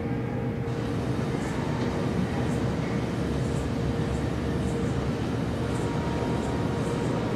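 Steady low rumble with a faint constant hum and scattered faint high ticks, from a video installation's soundtrack played over speakers in a large hall.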